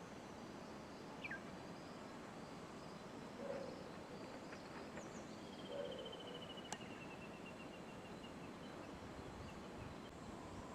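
Faint outdoor ambience: a steady low hiss with a few brief high chirps and, about six seconds in, a pulsed trill that falls slightly over about two seconds, of the kind insects or small birds make. A single sharp click falls near the middle.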